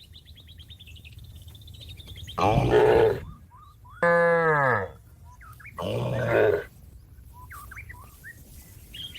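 Cow lowing in three short calls, the second one dropping in pitch as it ends, calling out to a herd-mate. Small birds chirp faintly behind the calls.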